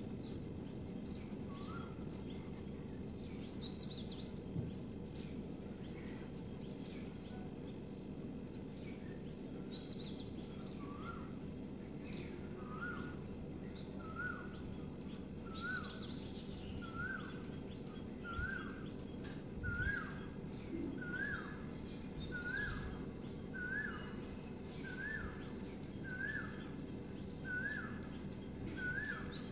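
Birds calling in the morning: one bird repeats a short rising note about once a second, steadily from about halfway through, while other birds give higher, quick falling chirps now and then. A steady low background noise runs underneath.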